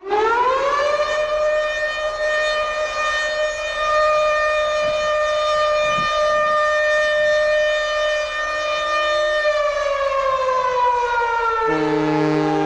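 A hockey goal horn sounding one long, loud blast. Its pitch rises over the first second, holds steady for about eight seconds, then slides down near the end. About a second before the end, brass music starts.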